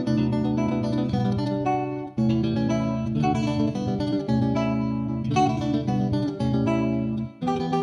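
Background music: plucked guitar playing a melody over a steady bass, with short breaks in the music about two seconds in and again near the end.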